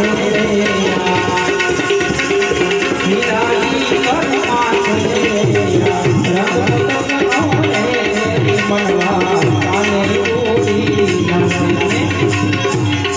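Instrumental passage of a Gujarati desi bhajan, with no singing: a harmonium melody over steadily played hand drums whose bass strokes bend in pitch.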